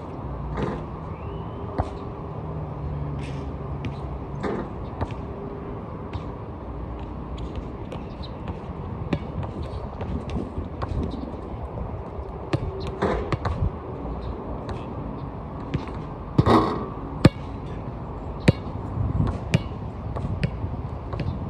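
Basketball bouncing and thudding on an outdoor court: irregular knocks, with a run of louder hits about three quarters of the way through, over a steady low background noise.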